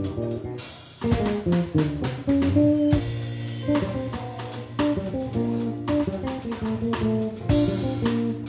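Live band playing an instrumental jazz-funk tune: electric guitar lines over bass and drum kit with cymbals, the band dropping out briefly about a second in.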